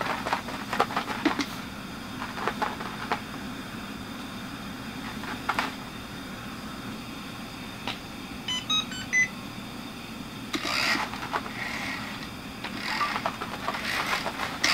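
App-controlled robot pet toy being driven around a floor, with clicks and scuffing bumps as it rolls and the dog noses it. Partway through it gives a quick run of electronic beeps at changing pitches, over a steady low hum.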